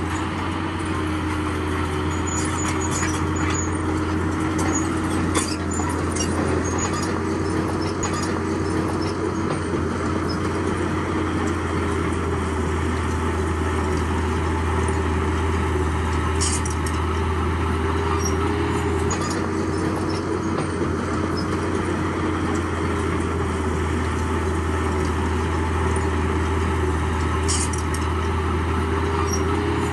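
Heavy diesel engine of earthmoving equipment running steadily under load, with a few short clanks scattered through.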